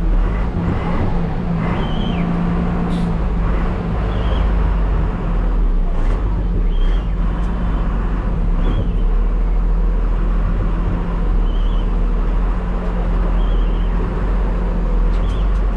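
Bus engine running at low speed, heard from the driver's cab as a steady low drone while the bus manoeuvres slowly. Short high chirps sound every couple of seconds.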